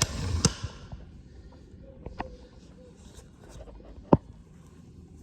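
Handling knocks and clicks as a silicone tube is readied for loading into a Makita cordless caulking gun. A rustle and knock come at the start, a small click about two seconds in, and one sharp click about four seconds in.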